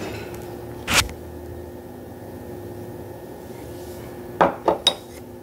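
Steady low hum with one sharp knock about a second in and three quick knocks near the end, small hard objects knocking during mask application.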